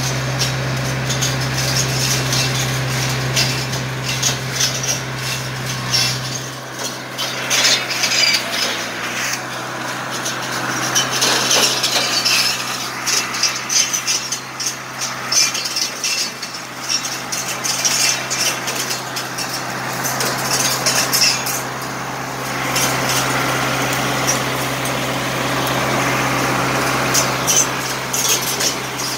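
Valtra 785 tractor's diesel engine running steadily, powering a boom-mounted multi-blade rotary saw. Irregular crackling and snapping as the spinning blades cut through leafy branches, thickest from about six seconds in.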